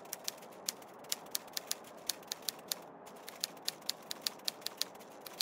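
Typewriter keystroke sound effect, sharp key clicks at about five a second, timed to text being typed out, with a brief pause near the middle, over a faint hiss.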